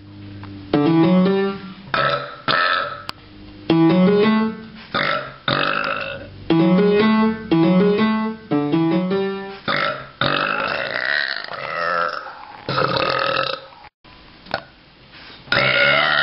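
A man burping deliberately and loudly, a run of long drawn-out burps. In the first half short bursts of music with plucked-string notes play between them.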